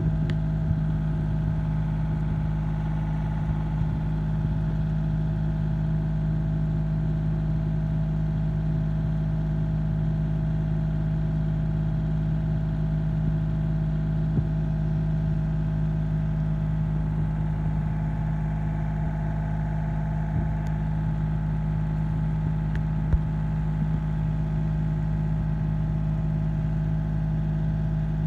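An engine idling steadily, a constant low drone that does not change in pitch, with a brief sharp click late on.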